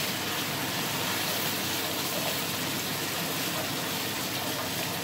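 Spring onion, grated carrot and tomato purée sizzling steadily in hot oil in a cast-iron pot as they are stirred with a wooden spoon.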